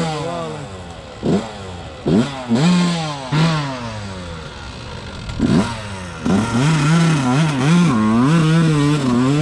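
Dirt bike engine revved in sharp throttle blips, each rising and falling back, then held at high revs with the pitch wavering for the last few seconds, as the rider tries to free the bike from deep mud.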